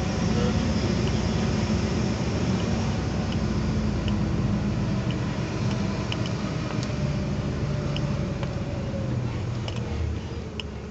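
Truck engine heard from inside the cab, running steadily as the truck moves slowly through a turn, easing off near the end.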